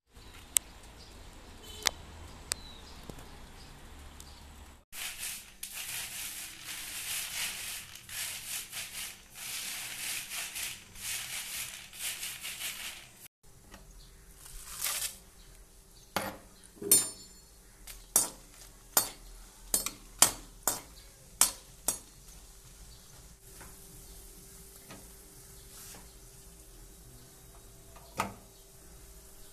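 A stretch of steady hissing noise, then a run of about ten sharp metallic clicks and clinks from a metal wok and utensils on a gas stove.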